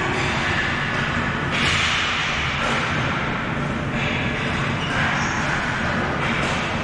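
Ball hockey game play: a steady clatter of sticks, ball and players' feet on the playing surface, with a few louder hits or slaps every second or so.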